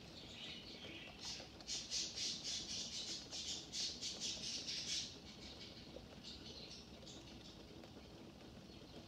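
Faint steady rain, with a run of rapid, high-pitched chirps starting about a second in and stopping about halfway through.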